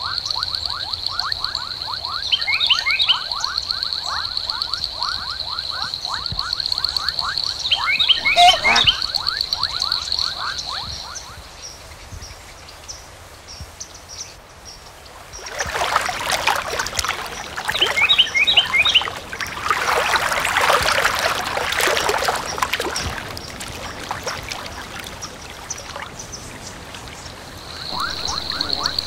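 Nature ambience of frogs calling in a rapid pulsing chorus over a steady high trill, with a few short bird chirps. About halfway through a loud rushing, water-like noise takes over for several seconds, and the high trill returns near the end.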